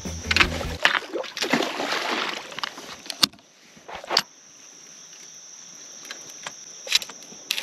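Water sloshing and splashing for the first few seconds. Then it goes quieter, with a few sharp clicks and a steady high-pitched tone underneath.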